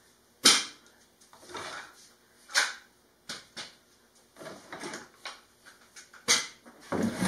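A string of irregular knocks and clicks from yellow one-handed bar clamps and wood being handled and set down on a workbench. The loudest knock comes about half a second in.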